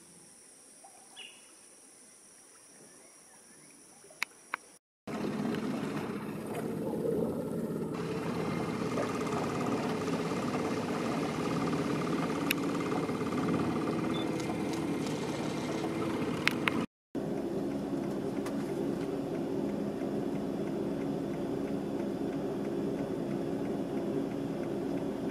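A boat's motor running steadily, a low even drone, which comes in after a cut about five seconds in. Before it there is only faint outdoor ambience with a thin, high steady whine.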